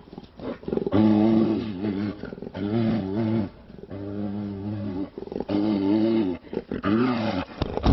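Brown bear growling and roaring in about five calls of a second or so each, the pitch wavering within each one. It is an angry, agitated bear coming round from a tranquilizer.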